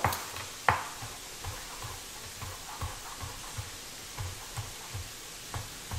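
Chef's knife chopping pepperoncini on a wooden cutting board: two sharper knocks at the start, then a run of soft, even taps about four a second.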